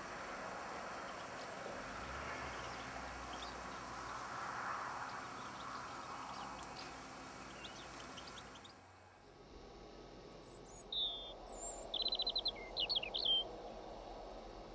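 Small birds chirping: faint scattered twitters over a steady background rush, then after about nine seconds a quieter background with a few louder chirps and a short rapid trill.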